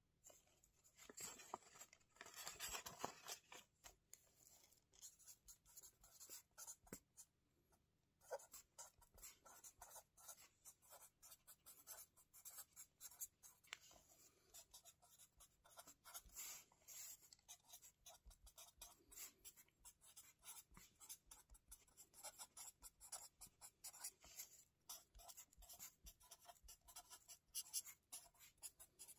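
Pen writing on the lined paper of a spiral-bound notebook: a soft, close run of quick scratching strokes, with a short pause about seven seconds in.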